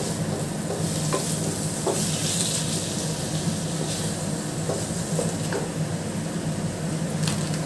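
Grated paneer frying in a non-stick pan, a soft sizzle, while a wooden spoon stirs and scrapes through it with a few light taps, over a steady low hum.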